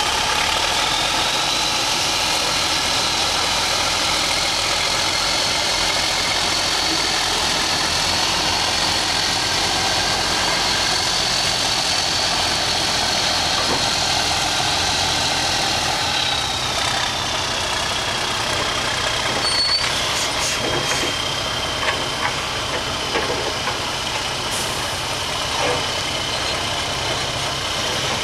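Four-axle MAN trial truck's diesel engine running steadily as the truck crawls over rough ground, with a high whine that rises about a second in, holds, and drops away about halfway through. A few sharp knocks come in the second half.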